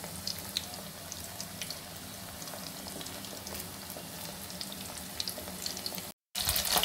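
Egg-and-cornflour-battered chicken pieces deep-frying in hot oil over a low flame: a steady sizzle with scattered small pops and crackles. The sizzle cuts out briefly near the end and comes back louder.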